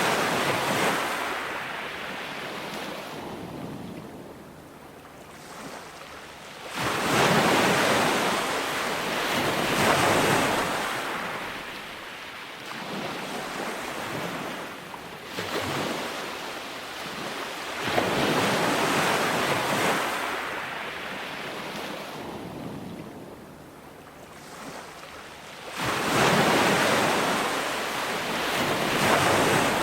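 Ocean surf: waves break one after another, each surge rising sharply into a wide wash and then draining back and fading over a few seconds.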